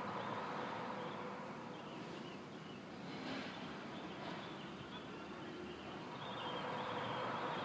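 Faint droning hum of unknown origin, a steady "nguung" made of a few held tones over background noise, swelling slightly near the end.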